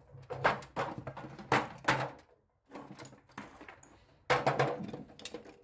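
Dismantled angle grinder parts being picked up and set down in an aluminium tray: a run of short metal knocks and clatters. It is busiest near the start and again toward the end, with a brief lull in the middle.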